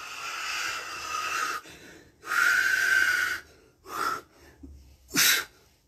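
A man breathing hard during a bodyweight exercise flow: two long, heavy breaths, then two short, sharp ones near the end.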